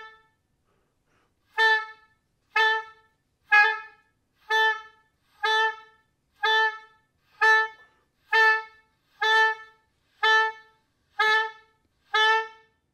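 Oboe playing one short detached note of the same pitch over and over, about once a second, twelve times, with silence between the notes.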